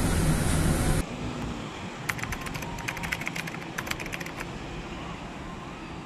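Rumble of a moving bus heard from inside the cabin for about a second. It cuts off abruptly to a quieter outdoor background with a rapid run of sharp, light clicks.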